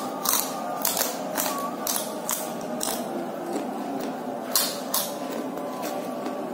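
Crunchy chewing of fried gadung (wild yam) chips: a run of crisp crackling crunches, about two a second, over a faint steady hum.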